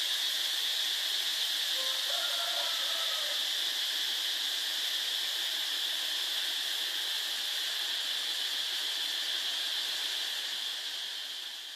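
Steady high-pitched insect chorus, an even shrill drone, fading out near the end. A faint short higher call sounds briefly about two seconds in.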